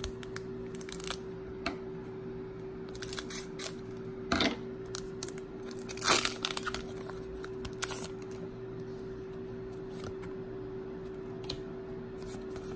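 Foil Pokémon booster pack wrapper crinkling and tearing as it is handled and opened, in scattered crackles with the loudest bursts about four and six seconds in. A steady low hum runs underneath.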